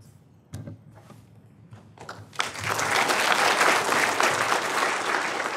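Audience applause: a few scattered claps, then full clapping breaks out about two and a half seconds in and holds steady.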